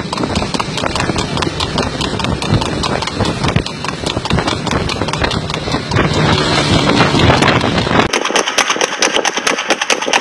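Hoofbeats of a trotting horse pulling a two-wheeled racing sulky on asphalt, mixed with the steady running of a motor vehicle engine close by. About eight seconds in, the deep part of the sound drops away and it turns thin and high.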